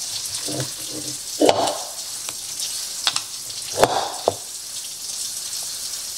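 Bare hands squishing and kneading raw ground-beef meatloaf mixture in a bowl: irregular wet squelching smacks, a few louder than the rest, over a steady hiss.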